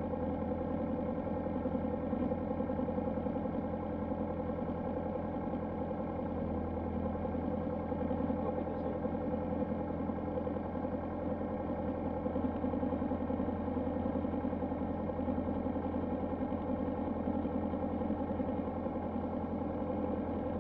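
Piper PA-28-161's four-cylinder Lycoming engine idling steadily, heard from inside the cockpit with the propeller turning.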